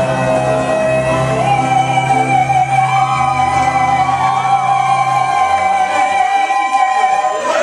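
Live band music with singing, ending on a long held high note. The low bass notes drop out about five and a half seconds in, while the held note carries on almost to the end.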